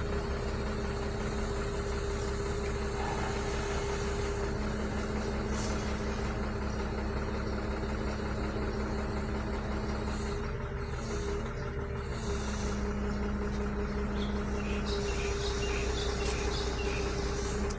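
Heavy vehicle's diesel engine running steadily: a continuous low drone with a steady hum.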